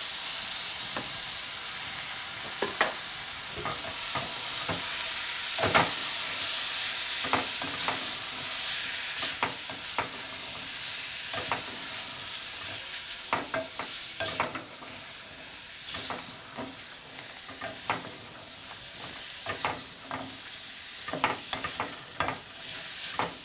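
Liver, onions and freshly added chopped tomatoes sizzling in a metal pot while a wooden spoon stirs them, scraping and knocking against the pot. The sizzle is strongest in the first half, and the spoon strokes come more often later.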